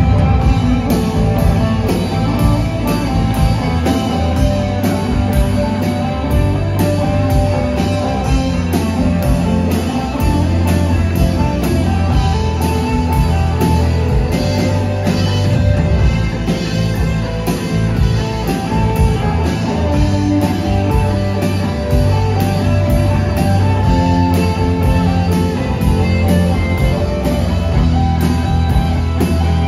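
Live rock band playing an instrumental passage: electric guitars over electric bass and a drum kit, loud and steady throughout.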